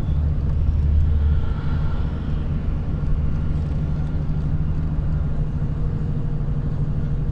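Steady low engine and road rumble from a moving road vehicle, heard from on board as it drives along a mountain road.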